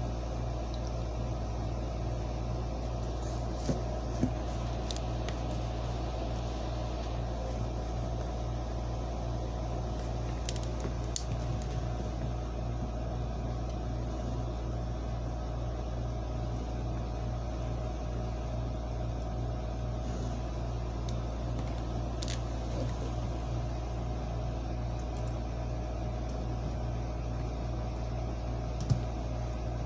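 Steady low hum from a running machine, with a few faint clicks and taps as metal model railroad track sections are handled, the clearest about 4 seconds in and near the end.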